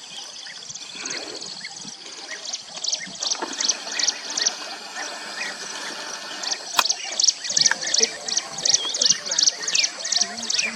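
A flock of European bee-eaters calling: many short, high, liquid calls overlapping one another, growing denser and louder in the second half. There is a single sharp click about seven seconds in.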